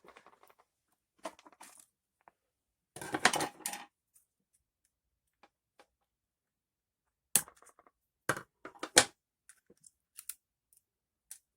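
Hands working on a small plastic RC truck: a brief rustle about three seconds in, then several sharp separate clicks and snaps, among them a zip tie being cut with cutters.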